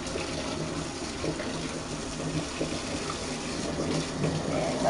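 Water running steadily from a tap, filling a basin.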